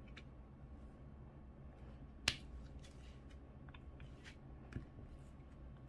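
Faint, scattered small clicks of a diamond-painting drill pen picking resin drills from the tray and pressing them onto the canvas, with one sharper click about two seconds in.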